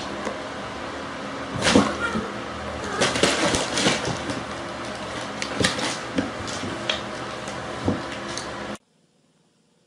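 Cats wrestling on a hardwood floor: irregular thumps and scuffles of paws and bodies over a steady background hiss. The sound cuts off abruptly near the end.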